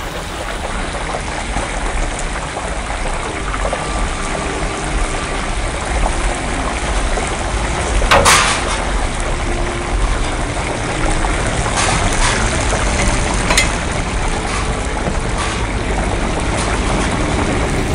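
Chapli kebabs frying in a wide karahi of hot oil: a steady sizzle, with a few sharp metal clicks and scrapes of the spatula on the pan, the loudest about eight seconds in.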